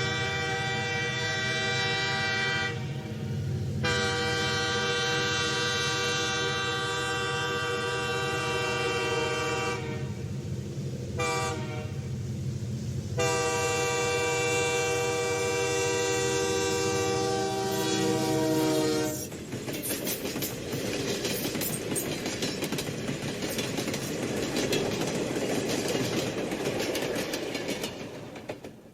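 Diesel train horn sounding several long blasts, then the train passing by with rumbling and clattering wheels on the rails, fading out near the end.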